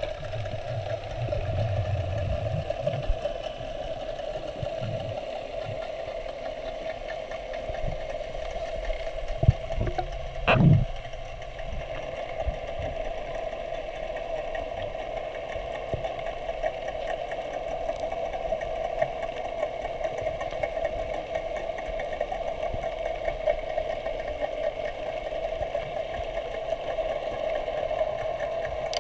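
Steady mechanical drone heard underwater, with low rumbling in the first few seconds, a few knocks, and a louder thump about ten seconds in.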